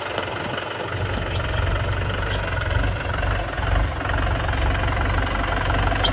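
Mahindra tractor's diesel engine running at a low, steady throttle, its low pulsing rumble growing stronger about a second in as the tractor approaches.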